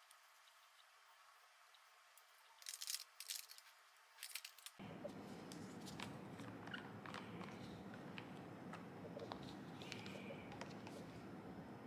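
Faint clicks and taps of small nail-product bottles and plastic caps being handled and set down on a desk, with a short cluster of clicks a few seconds in. About five seconds in a steady room hiss comes in, with light plastic ticks as squeezable cuticle-remover bottles are uncapped and handled for refilling.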